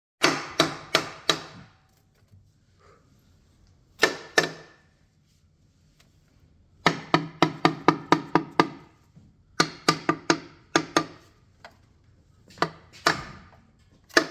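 Sharp strikes in quick runs of two to eight, each ringing briefly, with short gaps between the runs.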